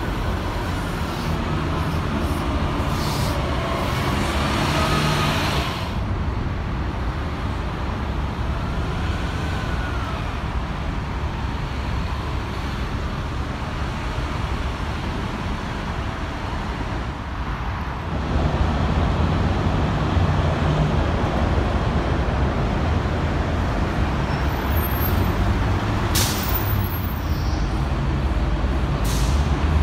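Diesel transit buses running and pulling away, a steady low engine drone with a whine that rises and falls during the first few seconds. A short air-brake hiss comes about 26 seconds in.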